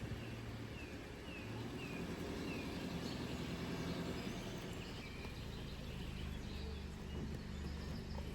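Forest ambience: a bird gives about four short, falling chirps in quick succession during the first few seconds, over a steady low rumble and hiss.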